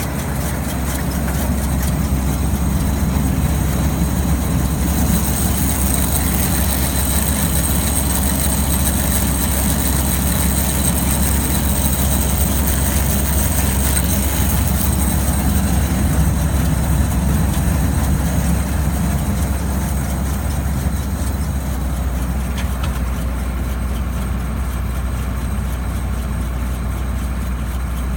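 Tractor engine running steadily at a constant speed, with a thin high whine added from about five seconds in until about sixteen seconds.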